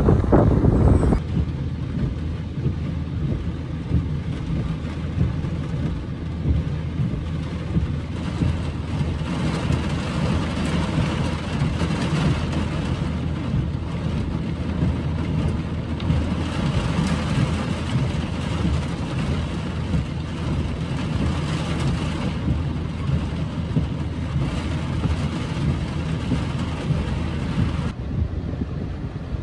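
Wind buffeting the microphone for about the first second, then a heavy downpour drumming steadily on a car's roof and windshield over the low, steady hum of the car's running engine.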